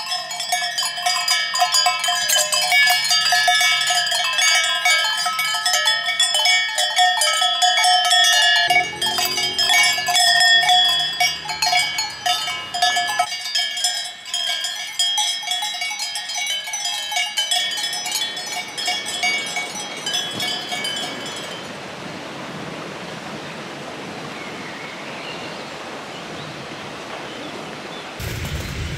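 Many cowbells on a herd of cows clanking and ringing together in a dense, overlapping jangle. About two-thirds of the way through the bells thin out and fade, leaving a steady hiss.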